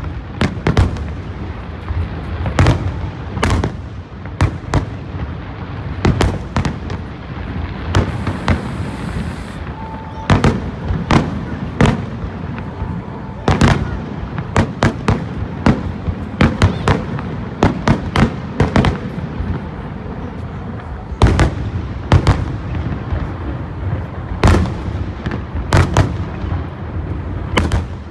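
Fireworks display: shells bursting in quick succession, several bangs a second at times, over a continuous rumble of launches and echoes.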